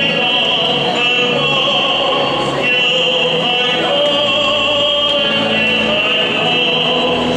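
Operatic-style singing with long held notes that change every second or so.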